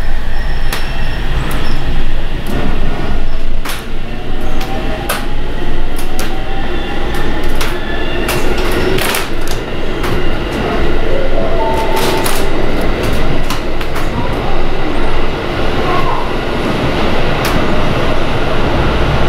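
Electric train running on the adjacent track, heard from inside a train carriage: a deep rumble with sharp wheel clicks and clacks, and a faint motor whine rising in pitch now and then.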